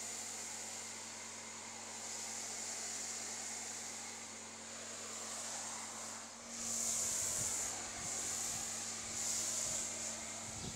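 A steady hiss, then from about six and a half seconds in a pressure-washer jet spraying onto a foam-covered car, coming in louder surges as the spray is swept across the bodywork.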